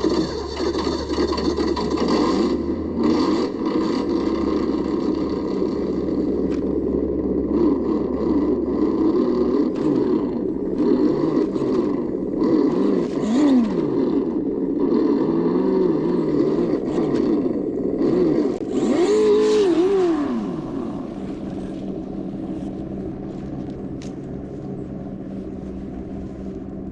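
An engine running and revving, its pitch gliding up and down repeatedly, then settling lower and quieter for the last few seconds.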